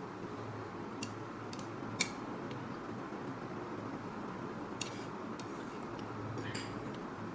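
Someone eating noodles with wooden chopsticks off a plate: a few short, light clicks and mouth sounds, the loudest about two seconds in, over a steady low hum.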